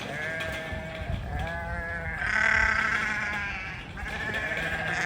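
Sheep bleating: about four wavering calls in quick succession, partly overlapping, the loudest about halfway through.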